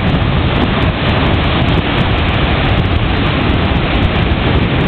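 Heavy storm surf breaking against the shore, mixed with strong wind buffeting the microphone: a loud, steady rush that does not let up.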